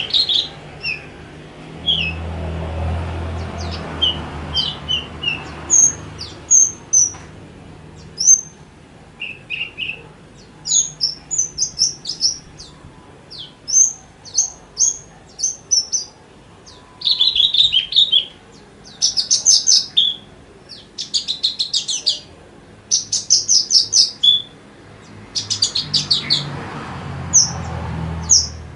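Javan bush lark singing: a tight run of short chirps and whistled notes with very short gaps, building into dense, rapid rattling trills in the second half.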